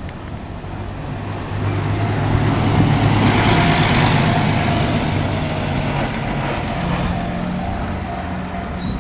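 A large vehicle passes close by, its noise swelling over the first few seconds and easing off slowly. From about four seconds in, level-crossing warning bells ring in a steady repeating pattern.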